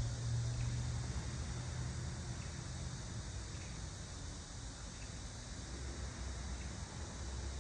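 Outdoor background ambience: a steady low hum under an even hiss, with a faint high steady tone, and no distinct events.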